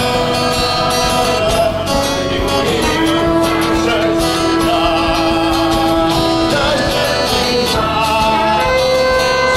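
Group singing a worship song over amplified backing music, with a single long ram's-horn shofar blast held steady for about three and a half seconds in the middle.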